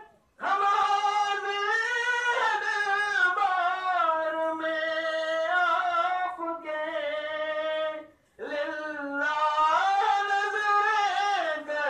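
Devotional singing: a voice holding long, ornamented notes that bend up and down, with two brief breaks, one just after the start and one about eight seconds in.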